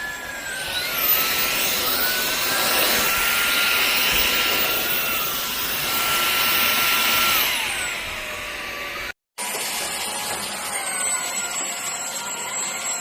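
Russell Taylors Vortex cordless vacuum cleaner's brushless motor running with a high-pitched whine. About half a second in it speeds up, the whine rising and getting louder, holds there until about seven and a half seconds, then slows back down. It cuts out briefly just after nine seconds and runs on at a lower speed.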